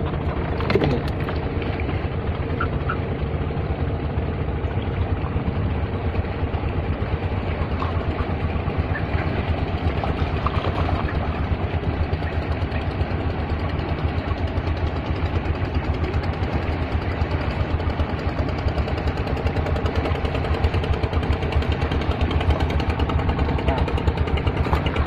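An engine running steadily, a low even drone with a fast regular pulse. A short knock about a second in.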